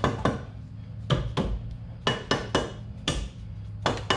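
Hammer tapping a steel CalTracs traction-bar bracket to seat it over the leaf spring and line up the bolt hole: about ten sharp, ringing metal-on-metal taps at an uneven pace.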